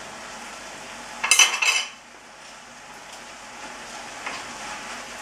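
Spaghetti sautéing in a frying pan, a steady sizzle as it is stirred, with a short loud clatter of a utensil against the pan about a second in.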